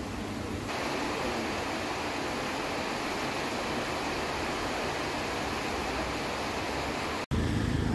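Steady, even hiss of heavy rain with no distinct events, cutting off abruptly near the end.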